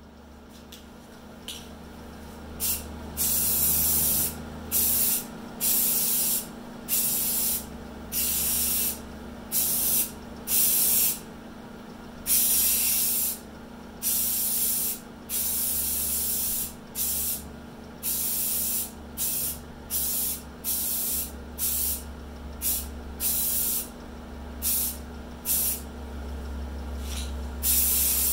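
Spray primer hissing in repeated short bursts, each about one to two seconds long, onto the underside of a fiberglass body panel. A low steady hum runs beneath the bursts.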